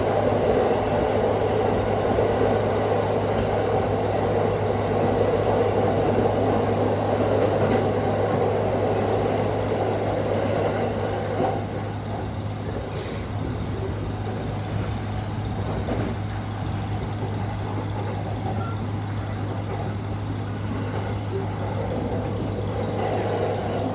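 Steady hum from the faulty air-conditioning unit of the JR East commuter railcar KuHa E230-8017, heard inside the car over the train's running noise. The running noise drops off about halfway through.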